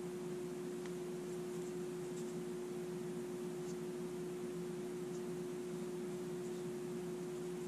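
Steady background hum: one constant tone over a light hiss, with a few faint small clicks.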